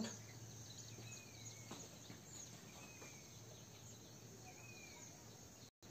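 Near silence: faint room tone with a low hum, a few faint short falling chirps, and a brief cut-out of the sound near the end.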